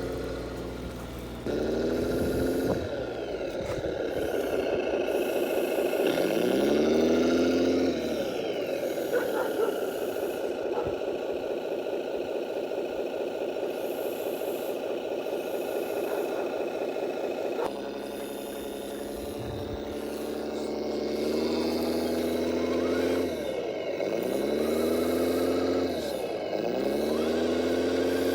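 Motor of a heavy radio-controlled construction machine running, its pitch swooping down and back up again and again as it is driven and worked, with a steadier stretch in the middle.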